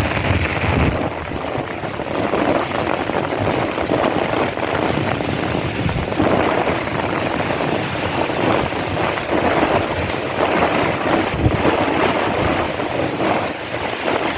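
Strong storm wind buffeting the microphone in loud, uneven gusts.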